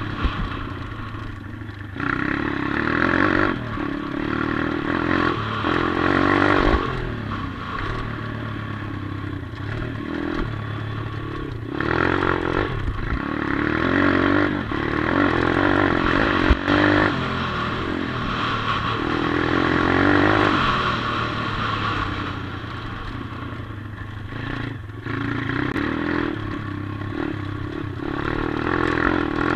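A 140cc Atomic pit bike's single-cylinder four-stroke engine, ridden on a dirt track, revving up and easing off again and again as the throttle is opened and closed. A few knocks and rattles come from the bike over the rough ground.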